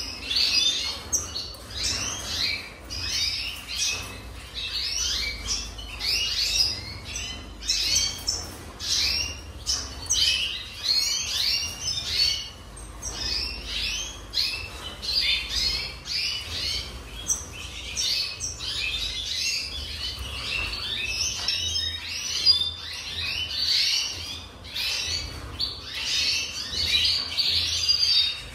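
Red siskin singing: a long, almost unbroken run of fast twittering, chattering phrases with brief pauses between them.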